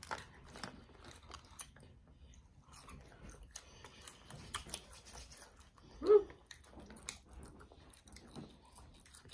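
Close-up chewing and biting of seasoned fries and chicken bites, with many small crunches and wet mouth clicks. A brief vocal sound about six seconds in is the loudest moment.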